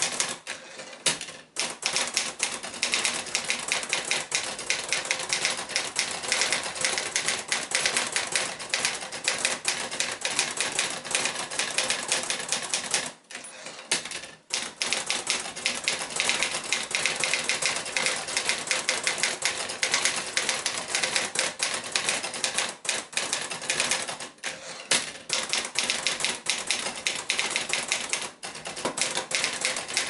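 1970 Olivetti Studio 45 manual portable typewriter being typed on at a quick, steady pace: a dense run of key strikes, with short pauses near the start and about halfway through.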